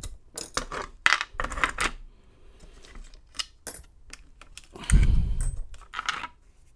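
Small metal padlock parts clicking and clattering as a Master Lock 930 is taken apart over a pinning tray, with a heavier knock about five seconds in.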